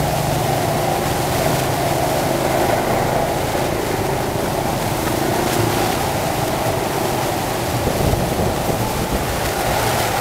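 Steady ride noise from inside a moving motorbike-drawn tuk-tuk in city traffic: the motorbike engine running under a constant rush of wind on the microphone.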